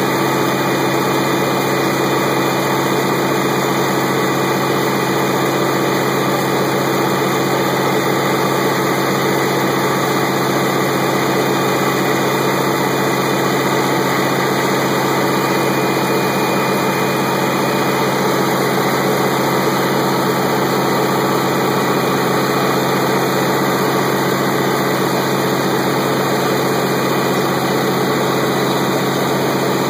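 Caterpillar 3412 V12 diesel engine running steadily at constant speed, driving a generator whose output is being set to 60 Hz and 480 V.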